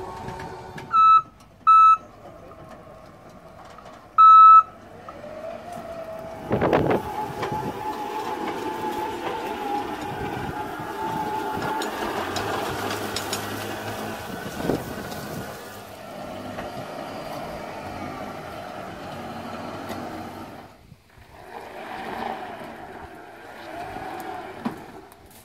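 Three short, loud electronic beeps, then the steady whine of the Naïo TED vineyard robot's electric drive as it runs.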